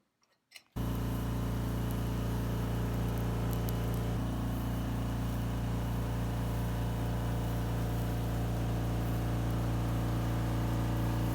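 A steady machine hum with an even pitch, starting suddenly about a second in and holding level throughout.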